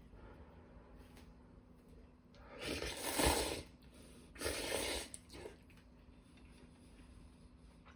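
A person slurping instant noodles twice, each a noisy, wet, breathy slurp about a second long, the second a little shorter.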